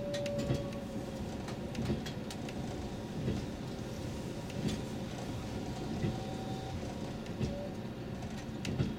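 Diesel express train running, heard from the driver's cab: a steady rumble with the wheels knocking over rail joints at an even beat, about once every second and a half.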